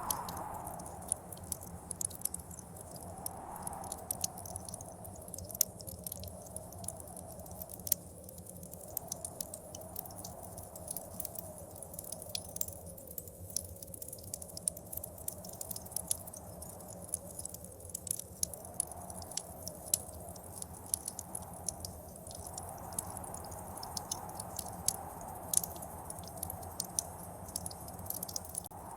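Wood fire crackling with frequent sharp pops, over the hollow howl of blizzard wind that swells and sinks in pitch every few seconds, and a low steady rumble.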